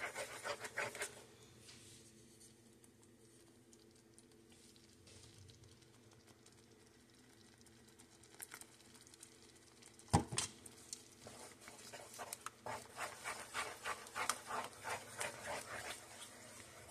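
Slotted wooden spatula stirring thick pan gravy: wet squelching, scraping strokes in the first second, then a lull with only a faint steady hum. About ten seconds in there is one sharp knock, and then the stirring strokes start again, about two to three a second, through to the end.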